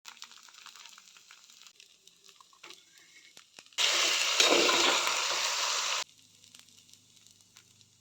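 Food frying in oil in a hot pan: a loud, even sizzle lasting about two seconds that cuts off suddenly, preceded by faint clicks and scrapes of cookware.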